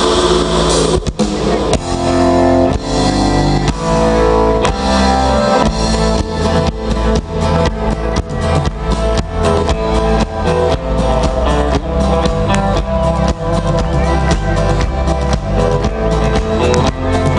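Live country-rock band playing an instrumental passage: guitars, bass and drums with a steady beat.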